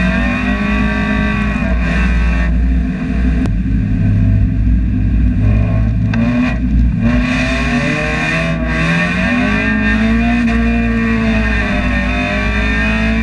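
Spec Miata's four-cylinder engine heard from inside the cabin, driven hard, its pitch rising and falling as the revs climb and drop. The note dips briefly a few seconds in and again about halfway through.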